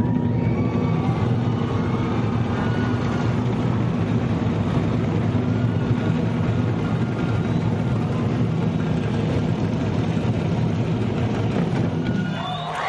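Many drums, Japanese taiko together with local drum troupes, beaten in a fast, continuous massed roll that makes a dense, steady low rumble. It ends shortly before the end, when applause starts.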